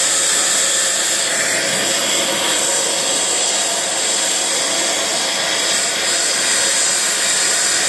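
Oxy-acetylene cutting torch with the cutting oxygen on, washing a weld bead off steel plate: a steady, loud hissing roar.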